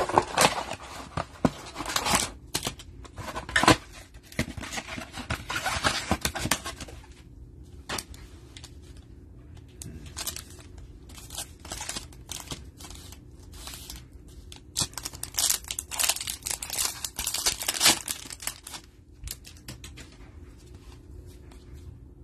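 Trading-card packaging being torn open and handled: a cardboard hanger box and its foil card packs crinkling and ripping in nitrile-gloved hands. There are two spells of loud tearing and crinkling, in the first several seconds and again past the middle, with lighter rustles and clicks between.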